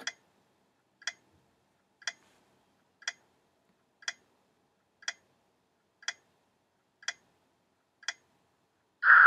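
Countdown timer sound effect ticking once a second, nine ticks, then a brief louder signal near the end as the answer time runs out.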